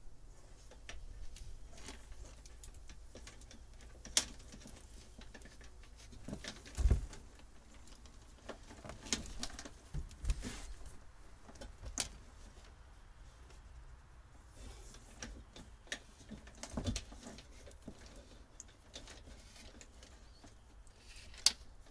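Scattered clicks and knocks with a few dull low thumps, from hands working old wiring and parts loose on a boat.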